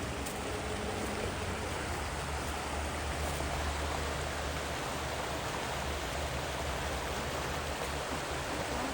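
A rocky mountain stream running steadily: an even, constant rush of water.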